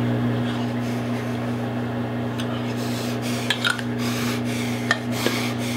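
A steady low electrical hum, with repeated rasping, rubbing strokes starting about halfway through, roughly two a second.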